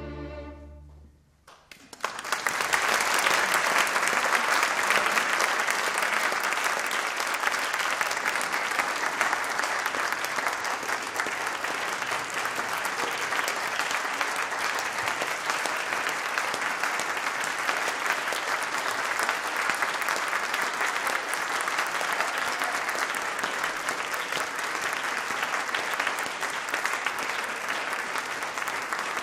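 A chamber orchestra with two solo violins ends on a held chord that stops about a second in. After a moment of silence, audience applause breaks out and carries on steadily.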